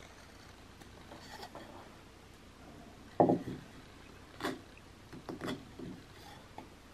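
Carving knife whittling basswood: a few short, separate slicing cuts into the wood, mostly in the second half.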